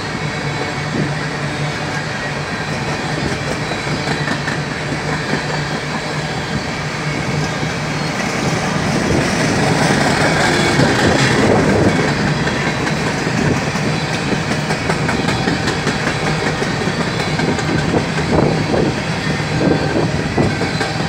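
Aluminium coal gondolas of a coal train rolling past on the rails: a steady rumble of steel wheels with clickety-clack over the rail joints. It swells louder about halfway through.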